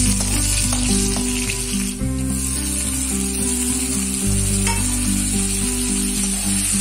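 Chopped onion, capsicum and tomato frying in hot oil in a wok, with a steady sizzle. Background music plays underneath.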